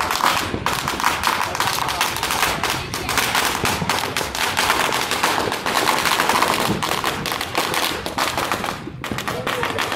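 A string of firecrackers going off in a rapid, unbroken run of sharp pops, thinning out about nine seconds in.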